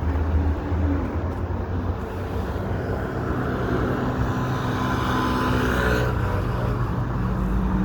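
City street traffic: a steady low rumble of vehicles, with one vehicle's engine growing louder and passing by about halfway through.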